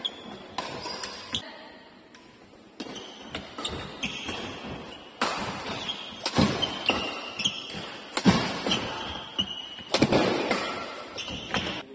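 Badminton doubles rally: irregular sharp racket hits and thudding footsteps on the court, with short high shoe squeaks.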